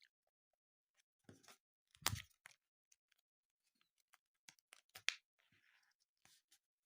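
Blind-bag packaging being handled, making a few scattered crinkles and clicks. The loudest comes about two seconds in, and a pair of sharp clicks comes near five seconds.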